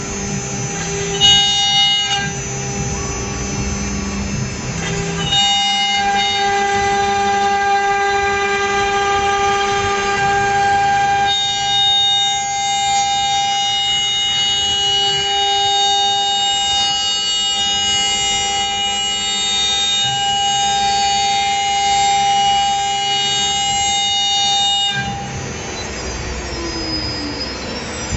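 CNC router spindle running and cutting aluminium composite panel: a steady high whine of several pitched tones. The whine shifts a few times and falls away about 25 seconds in.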